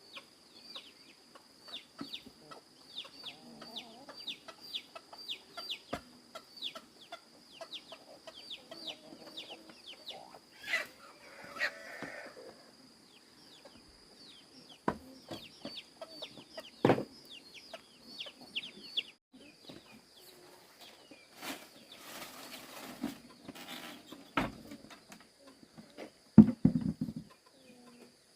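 Chickens: a rapid run of short, high, falling peeps, typical of chicks, through most of the first two-thirds, with clucks and a few knocks. A loud low burst comes near the end.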